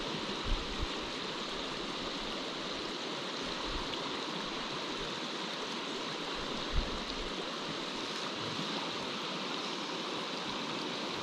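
Fast-flowing creek water running steadily close to the microphone, with a few brief low bumps.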